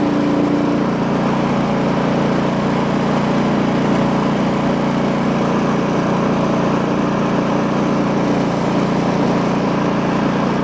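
A petrol engine running steadily at a constant speed.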